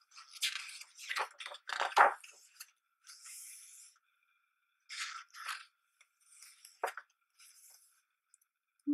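Pages of a hardcover photobook being turned by hand: the paper rustles and crinkles in several short bursts, loudest about two seconds in.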